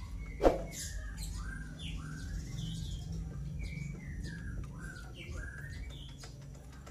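A single sharp metallic knock about half a second in. After it, a bird chirps repeatedly in short falling calls over a low steady hum, with faint scattered clicks.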